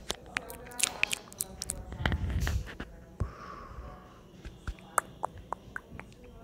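Metal spoon spreading butter over a stack of pancakes: light clicks and soft scrapes of the spoon on the pancake and plate, with a dull bump about two seconds in.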